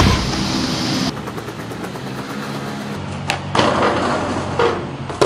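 Skateboard wheels rolling on asphalt, then a sharp pop a little over three seconds in and the board grinding along a steel road guardrail with a scraping sound, followed by a sharp clack near the end as it lands.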